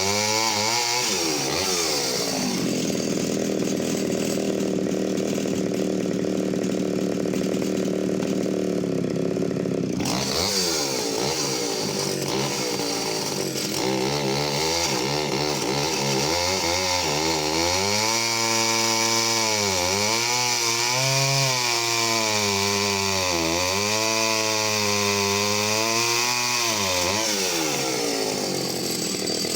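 Pioneer P25 51cc two-stroke chainsaw cutting through a thick, knotty log. The engine note drops as the chain bites and rises as it comes free, wavering up and down through the later part of the cut.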